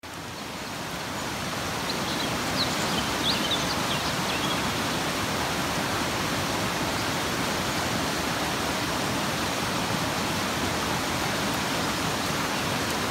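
Fast mountain creek rushing over rocks in whitewater, a steady full rush of water that fades in over the first couple of seconds. A few faint high chirps come about three seconds in.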